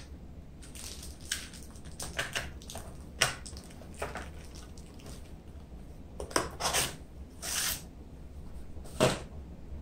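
A small cardboard parts box being handled and closed: scattered short scrapes, rustles and taps as the contents are packed in and the flaps tucked shut, with a louder knock near the end as the box is set down with the other boxes on a wooden table.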